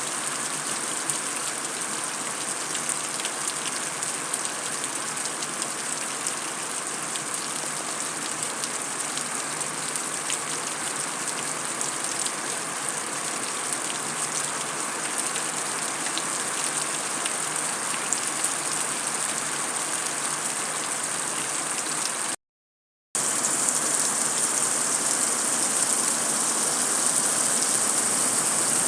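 Heavy rain falling on concrete: a steady hiss of dense drops with fine pattering. It cuts out to silence for under a second about three-quarters of the way through, then resumes slightly louder.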